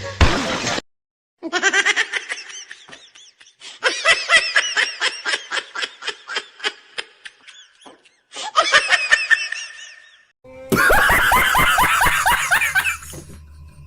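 Hard, rhythmic human laughter in rapid repeated bursts, broken off abruptly several times, with a louder outburst starting about eleven seconds in.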